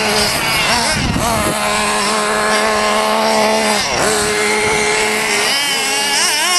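Small engines of radio-controlled off-road buggies, several running at once, whining as they rev up and down. The pitch drops and climbs back about a second in and again about four seconds in, then wavers near the end.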